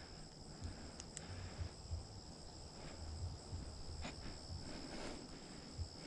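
Faint, steady high-pitched insect chorus over a low rumble, with a few faint ticks.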